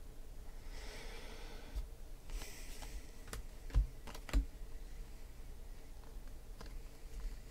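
Trading cards and a foil card pack being handled: rustling about a second in and again near three seconds, then a few sharp taps and clicks between about three and four and a half seconds in.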